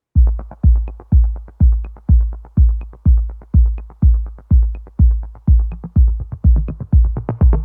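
Electronic background music: a steady deep kick-drum beat, about two beats a second, with light ticks between.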